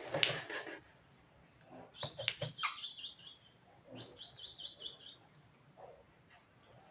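Javan myna calling: a short harsh, noisy burst at the start, then two runs of quick, high, repeated chirps, about two and four seconds in.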